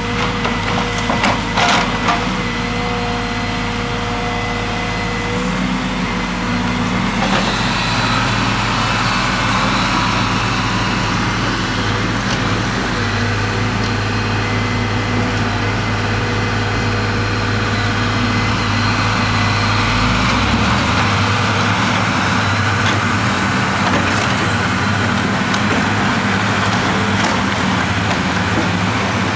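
Diesel engines of hydraulic demolition excavators running steadily, with a few sharp knocks and clatters of rubble about a second or two in. The engine note shifts at about seven seconds and again at about twenty seconds.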